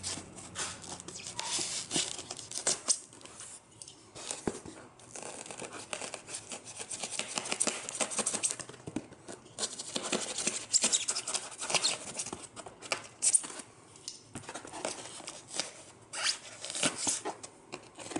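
Dense foam case insert being cut and worked apart by hand with a blade: irregular scraping and tearing strokes with sharp crackles, pausing briefly twice.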